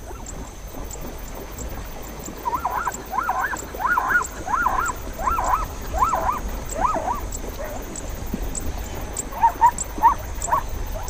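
Plains zebra calling: a run of about ten quick barking calls, each rising then falling in pitch, then a few seconds later four shorter ones.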